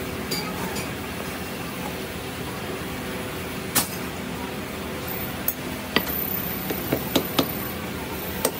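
Metal hand tools working a sand-casting mold in a steel flask, a steel rod and a hammer, giving sharp metallic clinks: one about four seconds in, then a few more in quick succession over the last three seconds. Under them runs a steady workshop hum.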